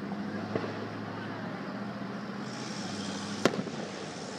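Fireworks going off: a small pop about half a second in, then one sharp bang about three and a half seconds in with a couple of smaller cracks right after it, over a steady low hum.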